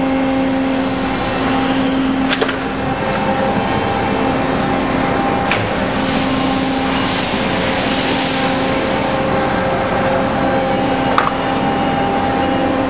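Hydraulic pump and motor of a Pines AD 35 CNC tube bender running with a steady hum, with a few sharp clicks and a stretch of hiss about halfway through.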